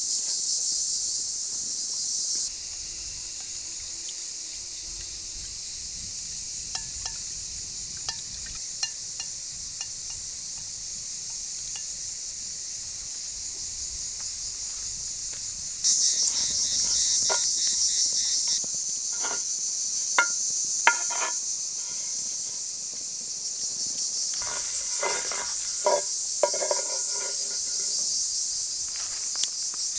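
A steady, high-pitched drone of insects in summer heat. In the second half come scattered knocks and scrapes from a wooden spoon moving lamb tail fat around an earthenware pan as the fat renders.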